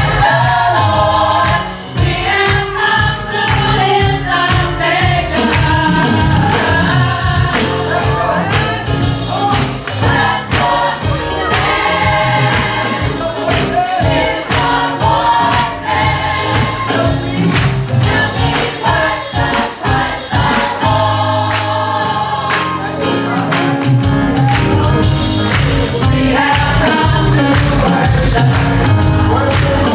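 Gospel choir singing over a band, with a steady beat and bass.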